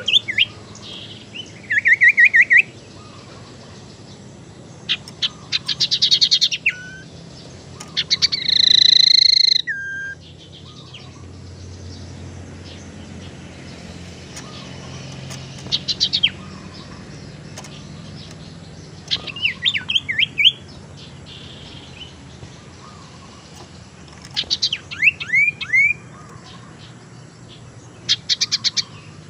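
Common iora calling in separate bursts: quick runs of repeated chips and trills, one long, loud two-toned whistle about nine seconds in, and later several quick downward-sweeping notes.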